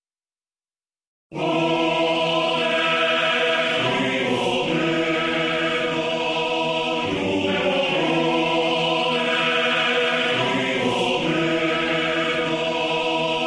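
About a second of silence, then music: slow, sustained choir-like chords that shift to a new chord every second or two.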